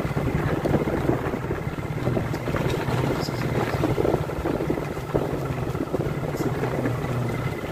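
Motorcycle engine running steadily while the bike rides along.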